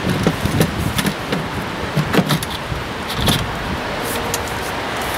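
Irregular clicks, knocks and rattles of an air filter housing cover being handled and pushed back onto its housing, with a clip that keeps coming out.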